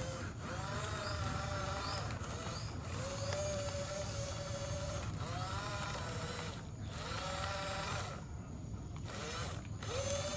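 Electric motors of a Huina 1550 remote-control excavator whining in several short runs, each starting with a quick swoop in pitch and then holding steady, with brief pauses between movements.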